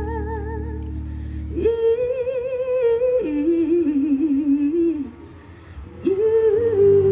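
Live band music: a singer holds a long note with vibrato over a sustained chord, then sings more drawn-out notes, one dropping lower in pitch, with a brief quieter gap before the next held note.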